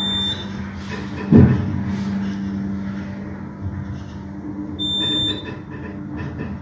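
Elevator car travelling with a steady hum. A short, high electronic beep sounds twice, about five seconds apart. A single loud thump comes about a second and a half in.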